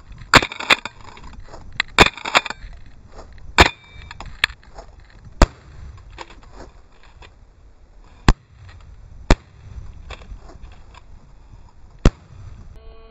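Shotgun shots: a string of about nine sharp, loud reports, several in quick succession in the first two or three seconds, then sparser ones a second or more apart.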